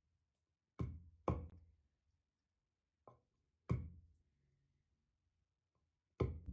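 Wooden masher striking green olives to crack them: five separate knocks, two close together about a second in, a faint one and a louder one near the middle, and one near the end.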